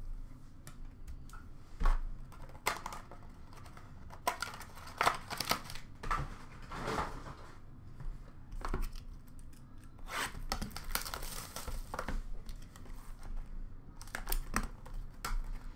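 Clear plastic wrapping crinkling and tearing in short irregular bursts as trading card boxes and packs are unwrapped and handled.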